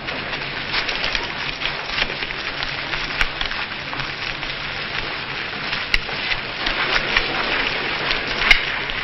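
Steady rain falling, an even hiss with scattered patter and a few sharper clicks.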